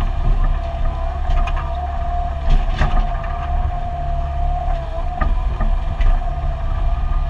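Mini excavator's diesel engine running steadily under load, heard from inside the cab, with a steady whine over a low rumble. Several short sharp knocks and clanks come through as the machine works.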